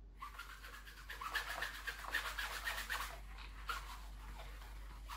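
Handheld whiteboard eraser wiped back and forth across a whiteboard, rubbing off marker in quick repeated strokes. The strokes are strongest over the first three seconds, then fainter and more scattered.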